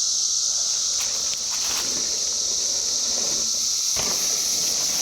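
Chorus of 17-year periodical cicadas, a loud, steady, high-pitched drone. A short knock comes about four seconds in.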